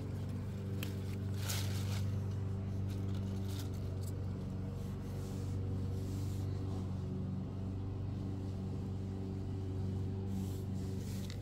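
A steady low mechanical hum of a motor or engine running, with a few brief rustles.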